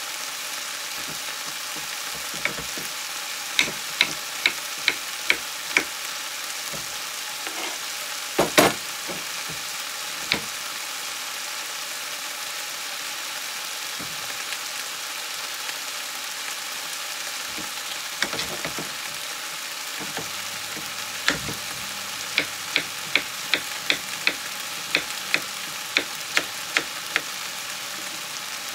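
Vegetables sizzling steadily in a frying pan, with a knife chopping a yellow courgette on a wooden cutting board: a short run of strokes a few seconds in, one louder knock, then a longer run of strokes at about two a second through the last third.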